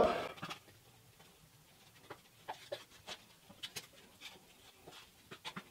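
Putty knife mixing Bondo body filler with its hardener on a scrap board: faint, irregular scrapes and taps, the blade stirring and folding the filler.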